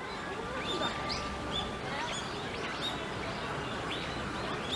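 Small birds chirping, short high calls repeating every second or so, over a background murmur of people's voices.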